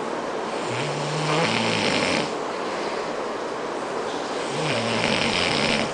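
A man snoring in his sleep: two long snores about four seconds apart, each a low buzzing drone over a breathy hiss.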